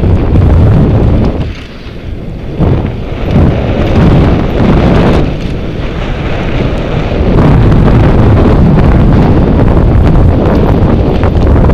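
Wind buffeting a helmet camera's microphone during a fast mountain-bike descent on a dirt trail, mixed with tyre rumble and small clicks and rattles from the bike. The rush eases briefly about two seconds in and again around six seconds in.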